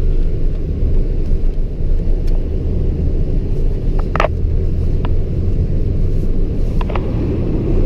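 Chevy S10 ZR2 pickup's engine running with a steady low rumble as the truck drives in deep snow, with a short sharp sound about four seconds in and two fainter ones near the end.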